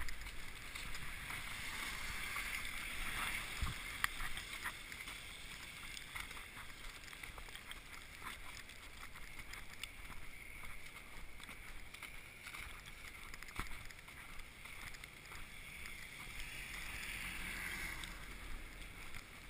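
Street ambience of walking on a snowy pavement: irregular soft footsteps in snow, and a hiss of traffic on a wet road that swells twice, early on and again near the end.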